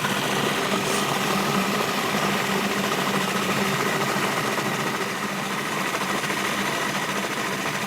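Food processor motor running steadily, blending thick hummus with olives and jalapeño, then cutting off sharply near the end.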